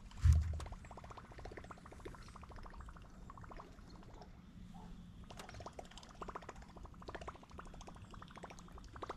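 Fishing reel cranked steadily, a rapid run of light ticks, while a Berkley Choppo topwater lure is retrieved; a dull thump just after the start.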